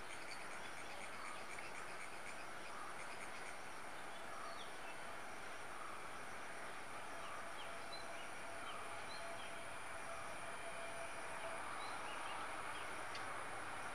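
Steady high-pitched insect buzzing, with short bird chirps here and there.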